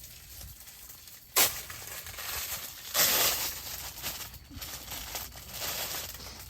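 Rustling and crinkling, like plastic or fabric being handled, with a sharp crackle about a second and a half in and a louder rustle about three seconds in.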